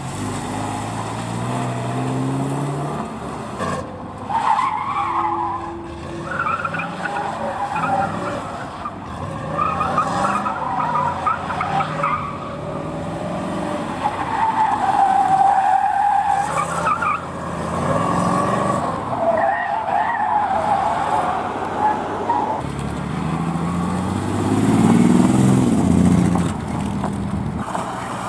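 Classic cars driven hard through tight turns, engines revving and tyres squealing, one car after another. One engine revs up strongly a few seconds before the end.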